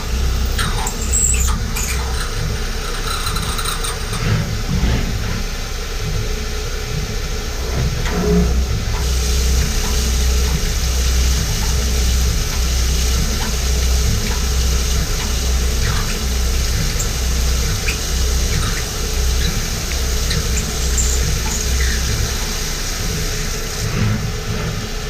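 Haas VF-3 CNC vertical mill running a drilling program, with a low hum pulsing in an even rhythm and a steady hiss that grows louder about nine seconds in, plus occasional short squeals.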